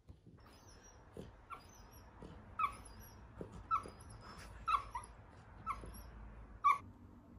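Golden retriever puppy whimpering faintly in its sleep: a string of short, high squeaks, roughly one a second.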